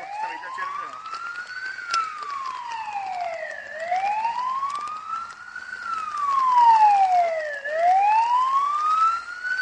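Police car siren wailing in slow sweeps, its pitch rising for about two seconds and then falling for about two seconds, over and over. It gets louder in the second half.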